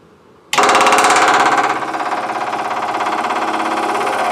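Electric fuel pump switched on from a toggle box. It starts abruptly about half a second in and runs with a steady buzz, priming the fuel line to build pressure before the car is started.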